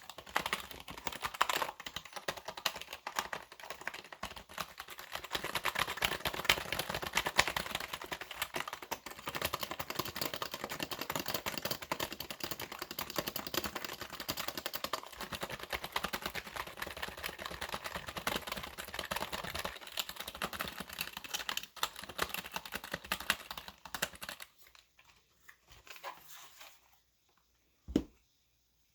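Fast, hard typing on a computer keyboard: a dense, rapid clatter of keystrokes. About 24 seconds in, it thins to a few scattered taps, with one brief thump near the end.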